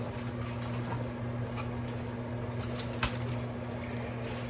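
Microwave oven running with a steady low hum while heating a paper bag of popcorn kernels; a single sharp click about three seconds in.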